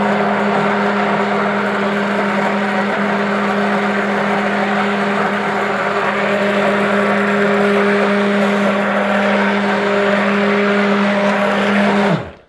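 Handheld stick blender running steadily, blending mica colourant into oil in a plastic bowl. Its motor winds down and stops about twelve seconds in.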